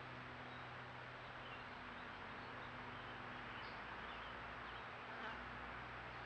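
Faint, steady outdoor background hiss with a few faint, short high chirps scattered through it.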